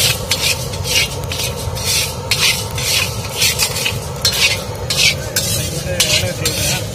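Metal ladle stirring and scraping dry split chana dal and cumin seeds across a large black kadai, a rhythmic grainy rasp of about two to three strokes a second, over a steady low rumble.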